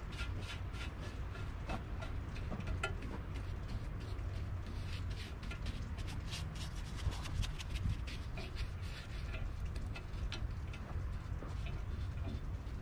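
Stiff bristle brush scrubbing naval jelly rust remover onto a rusty steel rear A-arm from a VW Beetle, in quick repeated rubbing strokes over a low, steady rumble.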